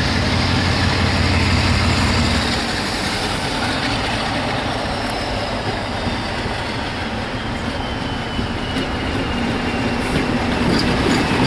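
Class 47 diesel locomotive running under power as it approaches and passes hauling coaches, a steady engine noise with a thin whine that slowly falls in pitch. A few sharp clicks near the end, typical of wheels over rail joints.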